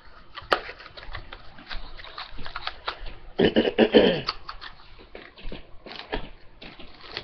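Handling noise close to a laptop webcam microphone: boxes and packaging being rustled and moved, with scattered clicks and knocks, a sharp click about half a second in and a louder burst of rustling and scraping around the middle.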